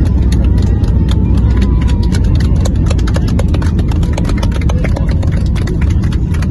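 Boeing 737 landing rollout heard from inside the cabin: a loud, steady low rumble of the airliner racing down the runway, with fast, irregular rattling and clattering from the cabin throughout.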